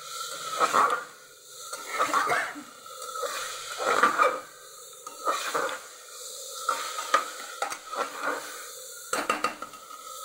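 Metal spatula stirring and scraping chana dal and masala in an aluminium pressure cooker, in strokes about once a second that grow lighter in the second half, over a low sizzle. A few sharp metallic taps come about nine seconds in.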